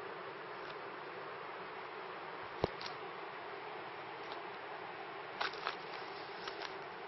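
Steady even hiss with a few sharp clicks, the loudest about two and a half seconds in and a small cluster near the end.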